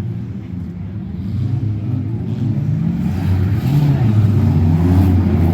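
Off-road derby cars' engines revving, their pitch rising and falling, growing louder from about halfway through.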